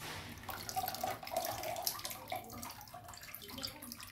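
Water pouring and dripping from a mesh net bag of small fish as it is lifted out of a bucket, splashing back into the water below. Heaviest in the first couple of seconds, thinning to drips.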